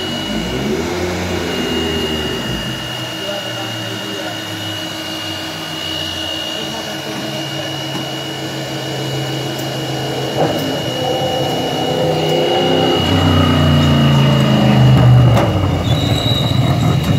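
Racing car engines in the pit lane, rising and falling in pitch, growing louder toward the end as a sports prototype drives past. A steady high whine runs underneath.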